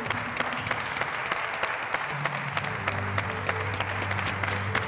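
Applause over walk-on music: steady clapping on top of sustained low notes, with the bass line moving to new notes about two seconds in.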